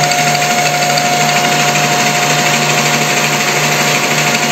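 Metal lathe running with a carbide-insert turning tool taking the final finishing pass along a steel shaft, cutting to 35 mm diameter. The lathe gives a steady hum with a constant high whine over the even noise of the cut.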